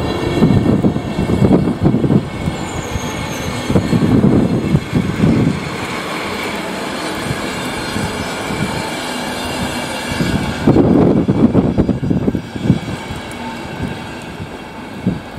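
PKP Intercity passenger coaches rolling past on the rails, a steady rumble broken by uneven clattering bursts from the wheels; the loudest comes about eleven seconds in, and the sound eases off near the end.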